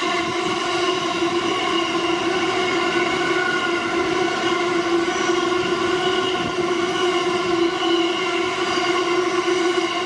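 Freight train of hopper wagons rolling past, with a loud, steady pitched squeal that holds one note with many overtones the whole time.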